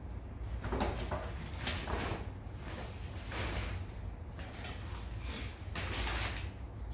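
Gift wrapping being unwrapped: paper and packaging rustling and crinkling in several short bursts, over a steady low hum.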